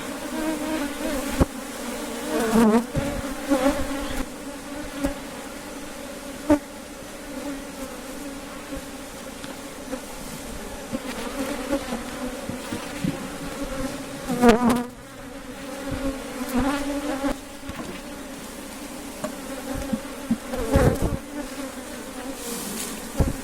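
Honeybee colony buzzing around an opened hive, a steady hum, with a few knocks from hive parts being handled.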